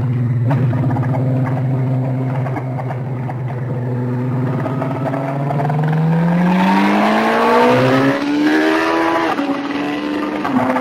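Sport motorcycle engine heard from on board: it holds a steady note, then revs up from about halfway through and drops in pitch with an upshift near the end, with a growing rush of air as the bike speeds up.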